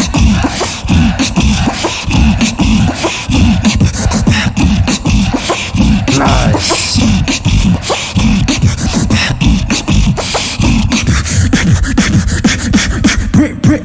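Live beatboxing into a handheld microphone over a hall PA: a fast, dense beat of deep bass kicks and sharp snare and click sounds, with no pause.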